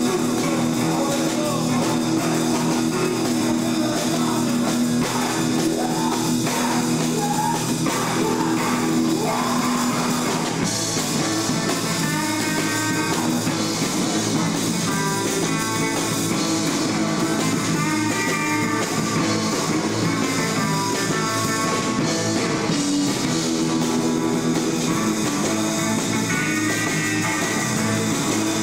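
Live rock band playing loudly: electric guitar over a drum kit.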